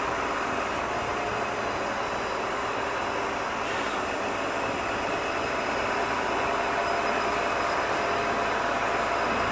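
Truck-mounted hydraulic crane working a lift: the lorry's engine and hydraulic pump running steadily with a faint whine, growing a little louder about six seconds in.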